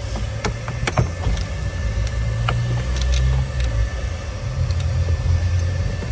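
Sharp plastic clicks and rattles of dashboard trim and wiring connectors being handled, scattered irregularly through, over a steady low rumble.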